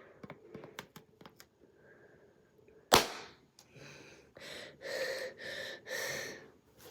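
A balloon popping with one sharp bang about three seconds in, after a few faint clicks. A run of short breathy sounds, about two a second, follows the bang.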